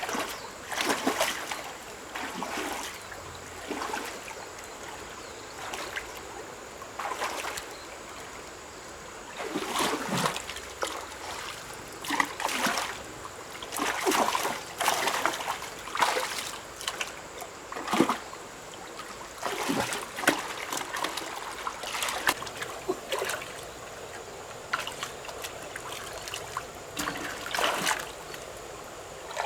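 River water splashing and sloshing in irregular bursts, every second or two, over a steady trickle.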